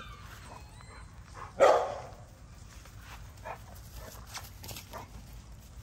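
A dog barks once, a single short bark about a second and a half in, followed by a few faint brief sounds from dogs play-wrestling on grass.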